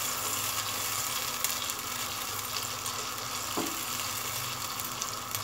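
Ghee sizzling as ginger-garlic paste and ground onion fry in a nonstick pot, stirred with a silicone spatula. The sizzle is steady, with a brief scrape of the spatula about three and a half seconds in.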